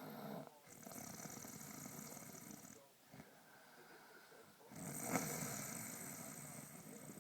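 Snoring: slow, long rasping breaths of a couple of seconds each, with short pauses between them. The loudest breath comes about five seconds in.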